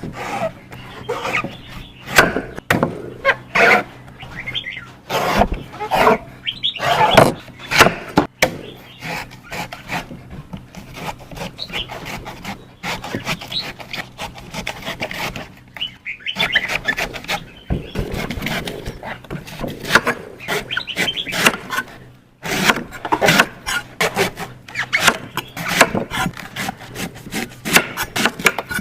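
Knife cutting a coconut: many sharp chops and rasping, scraping strokes at an uneven pace, with a short pause about three quarters of the way through.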